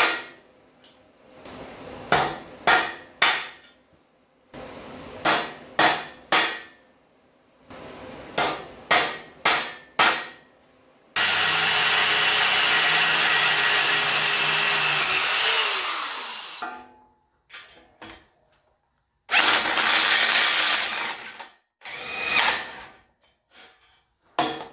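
A hammer striking a transfer punch on a steel plate, sharp metal taps in small groups of two to four. About eleven seconds in, a drill runs steadily for about five seconds boring into the steel, followed later by a shorter drilling burst and a few more taps.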